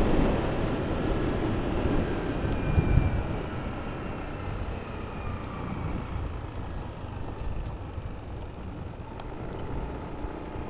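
Motorcycle engine running under wind rumble on a moving onboard microphone. Its faint whine slides down in pitch and the overall noise eases off, as the motorcycle slows.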